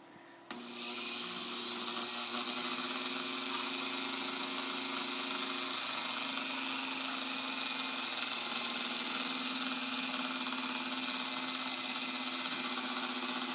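Dremel 395 rotary tool, held in a small drill press stand, switched on about half a second in and running at a steady high speed with an even whine.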